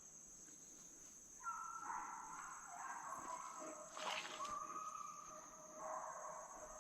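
A pack of deer hounds baying in the distance, several drawn-out overlapping bawls that start about a second and a half in. A short crackle comes about four seconds in.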